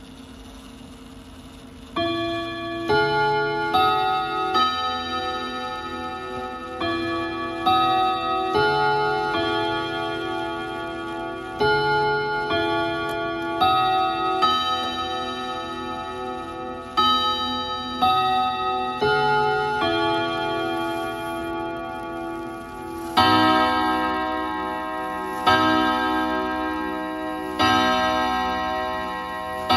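Antique French Odo 54 eight-rod chime clock striking: round-headed hammers hit the long gong rods on its 101 gong block, playing a chime tune of about one note a second, each note ringing on into the next. About 23 seconds in, louder strikes follow about two seconds apart. The rods ring out resonantly and the hammers strike evenly.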